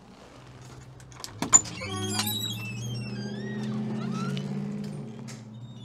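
Shop door's steel lever-handle latch clicking about a second and a half in as the door is opened, followed by a steady low hum with high wavering tones over it as the door swings open.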